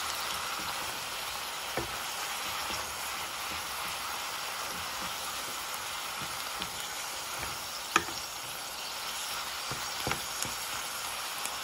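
Wild greens sautéing in olive oil in a pan: a steady sizzle, stirred with a wooden spatula that taps the pan a few times, the sharpest tap about eight seconds in.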